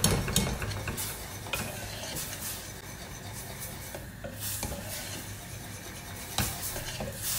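A wire whisk stirring cocoa powder into hot sugar syrup in a stainless steel saucepan, its wires scraping and clicking against the pan, with one louder knock about six seconds in.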